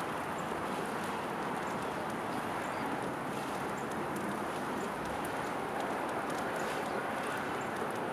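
Steady outdoor background noise with faint, sparse high clicks over it.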